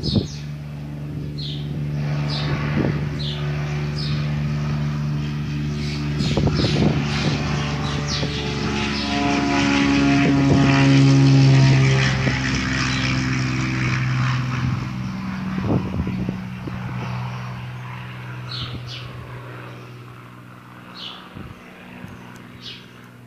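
Piper Seneca twin-engine propeller plane taking off: the engines and propellers grow louder through the takeoff run, are loudest about halfway through, then fade away as it climbs out. Birds chirp at the start and again near the end.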